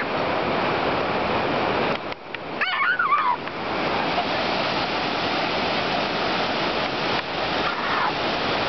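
Steady rushing of beach surf. A short, high, gliding cry breaks through about three seconds in.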